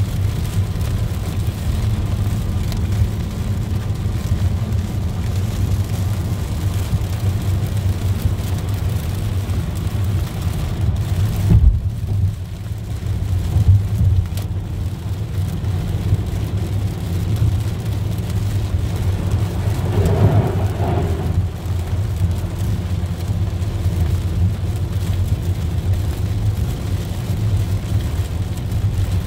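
Inside a car driving at speed through heavy rain: steady low road and tyre rumble, with rain hitting the windshield and body. A thump about twelve seconds in, and a short higher-pitched sound about twenty seconds in.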